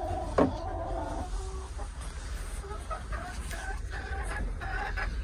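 Domestic hens clucking in a series of short calls, with one sharp knock about half a second in.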